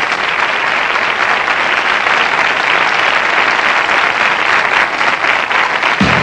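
Theatre audience applauding, a dense, even clapping that starts suddenly and holds steady.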